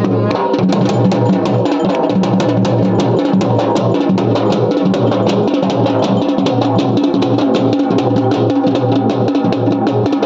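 Loud devotional music: a fast, steady drum beat over a sustained low drone, without singing.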